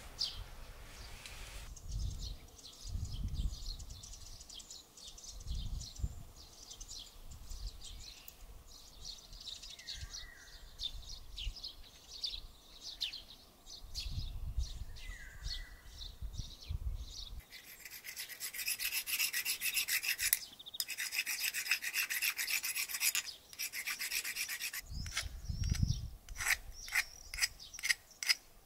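Hand work with a tool: scattered clicks and soft knocks, then several seconds of steady rasping scraping like filing, and a quick run of sharp clicks near the end. A bird chirps briefly twice in the first half.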